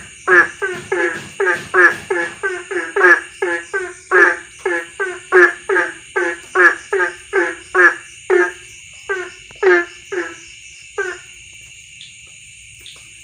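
Frog, the kind called kodok tungtet, croaking in a fast series of short calls, about three a second, that spaces out and stops about two-thirds of the way through. Under it runs a steady high-pitched drone of insects.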